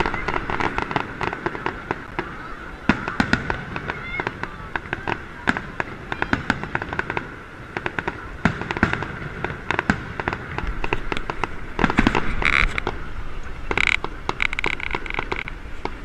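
Aerial fireworks bursting overhead, with a continuous run of sharp pops and crackling throughout. A few short high whistles sound near the end.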